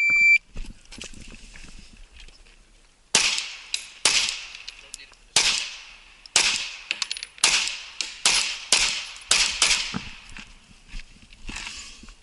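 A shot timer's start beep, followed about three seconds later by a string of roughly a dozen handgun shots fired at an uneven pace in pairs and singles, each with a short echo.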